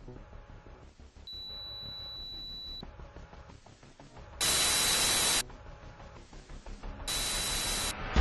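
Film sound design of electronic noise over a faint low drone: a thin, steady high beep lasting about a second and a half, then two loud bursts of static hiss with the same high tone running through them, the first about a second long and the second a little shorter.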